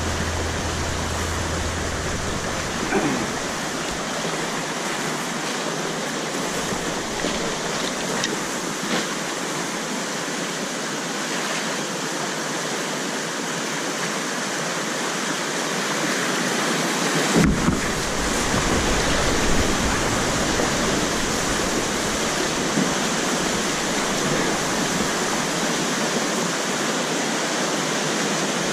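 Whitewater rapids rushing steadily over rocks. There is one sharp knock about 17 seconds in, and the water's deeper rumble is stronger after it.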